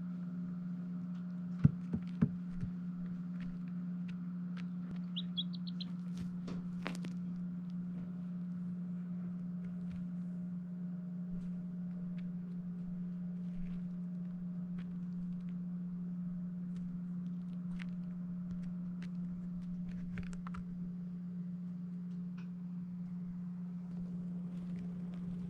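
Baby chicks in a brooder: a quick run of four or five high peeps about five seconds in, with scattered light clicks and taps, over a steady low hum. A few sharper clicks come about two seconds in.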